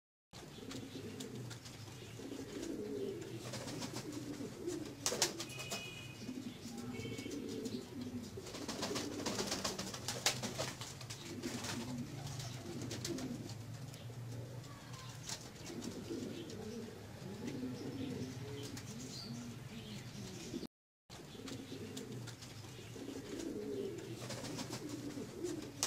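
Pouter pigeons cooing over and over in low, repeated phrases, with a few sharp clicks about five and ten seconds in.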